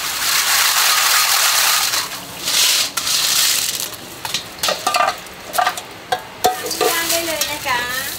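Water and shellfish poured from a plastic bag into a stainless steel colander: a splashing hiss for the first couple of seconds and again briefly, then several sharp clinks of the metal colander and bowl as the shellfish are handled and tipped.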